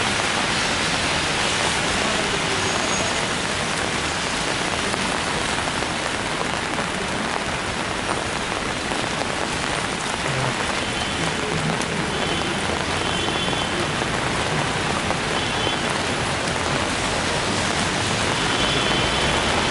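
Steady rain falling on an open umbrella overhead, with the hiss of car tyres on the wet road behind it.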